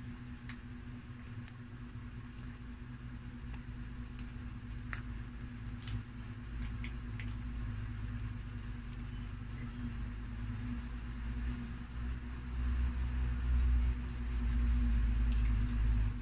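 A steady low electrical hum with a deep rumble that swells over the last few seconds, and a few faint clicks and crinkles from plastic ketchup sachets being handled.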